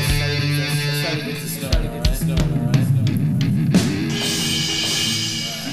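Heavy metal music: an electric guitar holds chords over a drum kit, with bass drum hits about two seconds in and a bright cymbal wash over the last part.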